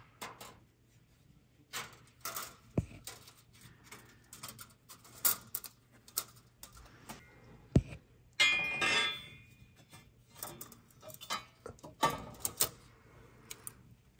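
A metal head gasket being laid on the cast-iron deck of a Caterpillar 3406 engine block and shifted into place by hand: scattered metallic clicks and taps, two sharp knocks, and a scraping rattle about eight seconds in.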